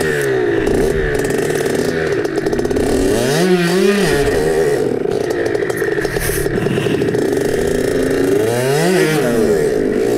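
Two-stroke dirt bike engine running, revved up and back down twice: about three seconds in and again near the end.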